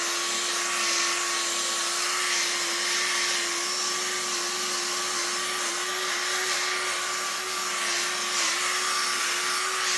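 Rotary buffer running steadily while buffing clear coat, a constant motor whine whose pitch dips slightly now and then as the pad loads.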